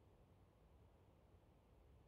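Near silence: faint low hum and hiss.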